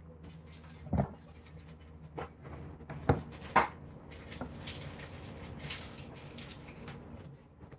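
Handling noise from a camera being moved and set in place: a knock about a second in, two sharper knocks around three seconds in, then a few seconds of rubbing and rustling.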